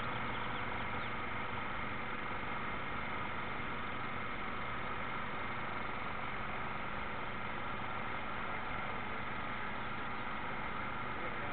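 Steady hum of a radio-controlled model destroyer's drive motor running at constant speed, picked up close on its own deck.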